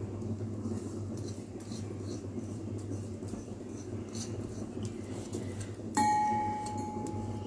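Soaked barnyard millet being scraped out of a plastic tub into a stainless-steel bowl, heard as faint scattered ticks over a steady low hum. About six seconds in, a spoon knocks against the steel bowl, which rings with a clear tone that slowly fades.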